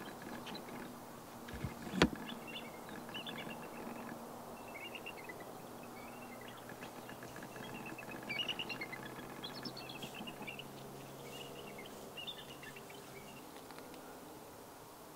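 Faint, steady low drone of a distant engine, with small birds chirping in short high trills on and off. A single sharp knock about two seconds in.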